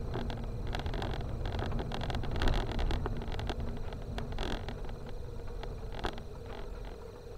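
Car driving over a rough, broken dirt road: engine and tyres rumbling, with frequent knocks and rattles as the car jolts over ruts and stones, and a louder jolt about two and a half seconds in.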